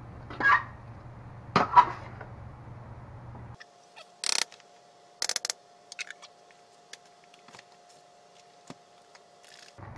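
Metal utensils scraping and clanking against a stainless steel pan as chopped cabbage is tossed, loudest twice in the first two seconds, over a steady low hum. About three and a half seconds in the hum stops abruptly, leaving a faint steady tone with scattered clicks and knocks.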